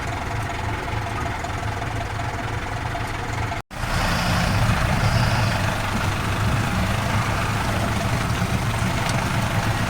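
Off-road vehicle's engine running steadily while driving the track. The sound cuts out abruptly for an instant about a third of the way in, then comes back a little louder.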